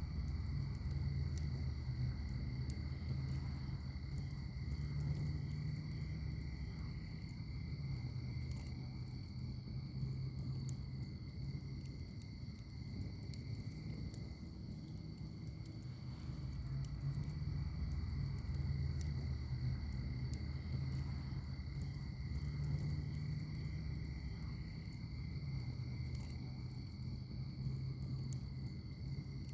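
Wood fire burning in a firepit, a steady low rumble with sparse light crackles, over a continuous high-pitched steady drone.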